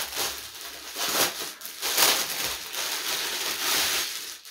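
Packaging crinkling and rustling in uneven surges as a sweatshirt is unwrapped by hand; it stops abruptly near the end.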